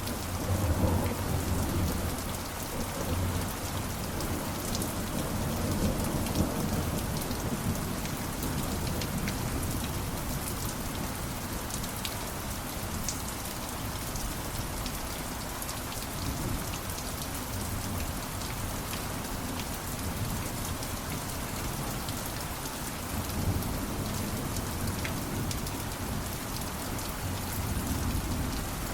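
Steady rain hissing, with a low rumble of thunder that swells in the first few seconds and again briefly near the end.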